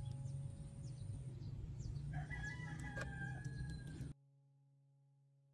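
A rooster crows once about two seconds in, a held call of about a second, over a low background rumble with a few faint clicks. The sound cuts off abruptly near the end, leaving only faint steady tones.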